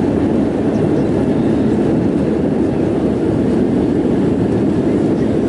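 Steady cabin noise inside an Airbus A320 climbing after takeoff: the even rush of the jet engines and airflow, strongest low in pitch, with no change throughout.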